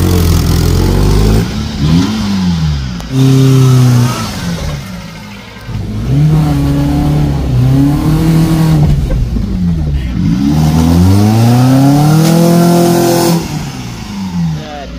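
Maruti Suzuki Zen 1000cc petrol engine revving up and dropping back several times as the car is driven, the pitch climbing and falling with each press and release of the throttle.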